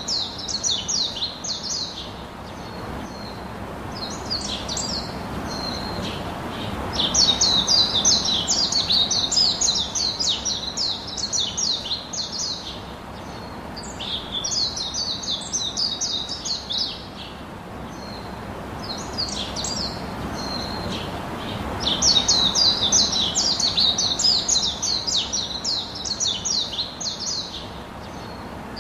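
Small songbird singing: phrases of rapid, high chirps, each two to three seconds long, repeating about every seven seconds.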